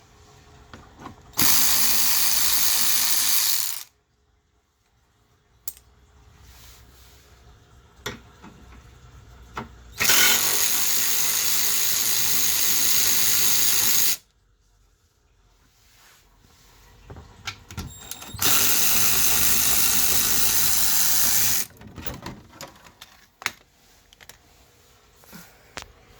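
A power tool runs in three steady bursts of about two and a half to four seconds each, spinning out the 10 mm bolts that hold the radiator fan assembly. Short clicks and clatter of tools and parts come between the bursts.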